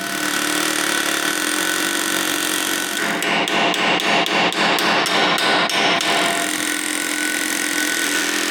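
Pneumatic air chisel hammering against a tight nut on a tractor PTO shaft to drive it round, running steadily, with a pulsing beat of about three strokes a second from about three to six seconds in.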